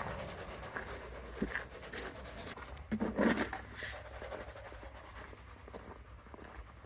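Soft scratching and crunching of rock salt being spread by hand over a snowy driveway, with a brief louder sound about three seconds in.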